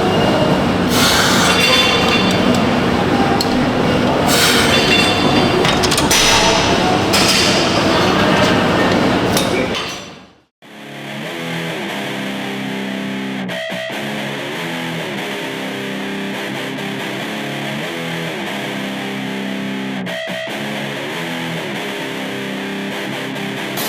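Loud gym noise with metal clinks and clanks of weight equipment, fading out about ten seconds in. Then an instrumental guitar music track plays steadily.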